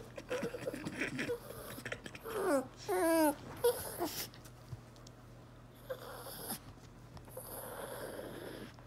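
Small dog whining in a quick run of short cries a few seconds in, the fretting of a dog trying to find a place to stash a piece of food. Rustling as it noses into the bedding and couch cushions is heard before and after.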